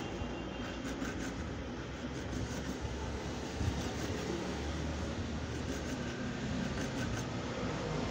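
Steady low rumble and hiss of background noise, with one brief knock about three and a half seconds in.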